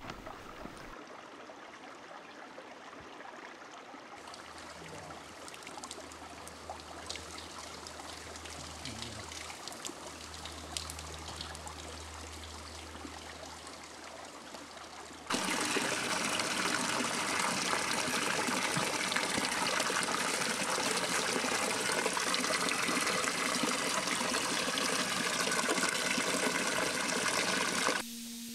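Water running steadily from a spring fountain. It comes in suddenly about halfway through as a loud, even rush and cuts off just before the end. Before it there is a quieter outdoor background with a faint low hum.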